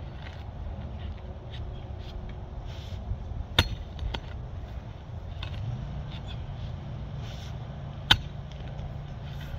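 Pickaxe striking a tree stump while digging it out: two sharp blows about four and a half seconds apart, with lighter knocks and scrapes between them, over a steady low rumble.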